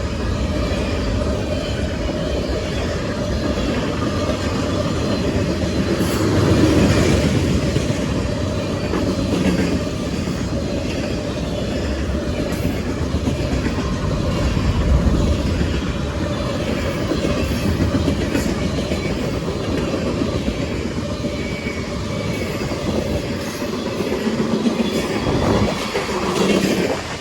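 CSX manifest freight train rolling past at the crossing, its car wheels clattering over the rails in a steady, continuous rumble.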